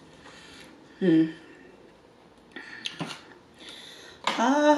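Short wordless vocal sounds from a woman, a brief hum about a second in and a longer one near the end, with a short rustle and click of fast-food packaging being handled between them.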